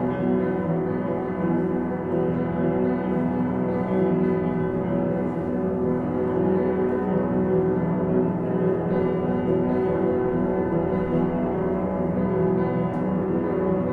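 Live instrumental drone music: a dense, steady wash of sustained ringing tones layered over one another, with no clear beat.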